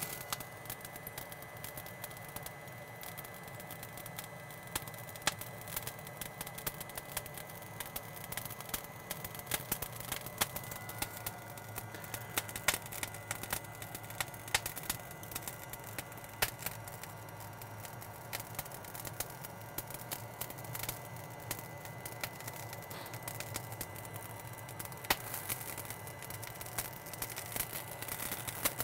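Lump charcoal crackling and popping with scattered sharp snaps as it catches, over the steady blowing hum and whine of a Looft Lighter X Gen 2 hot-air lighter held against it.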